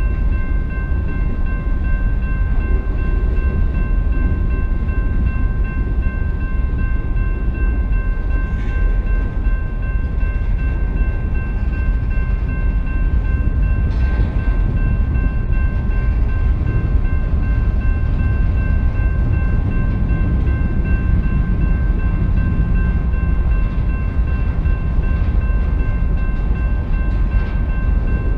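Freight train cars rolling past, a steady low rumble of wheels on rail that holds without a break. A few steady high-pitched ringing tones sound over it throughout.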